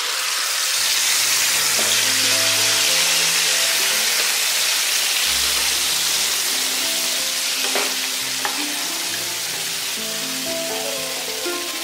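Thick wet gravy paste hitting hot oil in a non-stick kadai and frying with a loud, steady sizzle that starts suddenly. There are a couple of clicks about eight seconds in.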